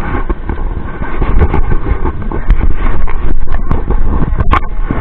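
Wind rumbling and buffeting on the microphone, with irregular small splashes and knocks from shallow water around the wading angler.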